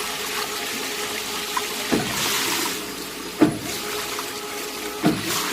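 Loach flesh-separating (deboning) machine running with water: a steady hum and rush of water, with a sharp thump about every second and a half, three times.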